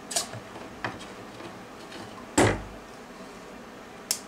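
Handling noises at a metal workbench: four separate knocks and clicks, the loudest a dull clunk about two and a half seconds in.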